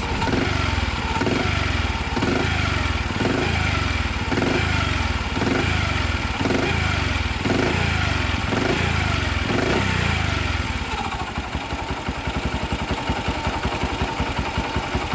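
Honda Little Cub's 49 cc four-stroke single-cylinder engine revved up and down over and over, about once a second, then settling to a steady idle about eleven seconds in.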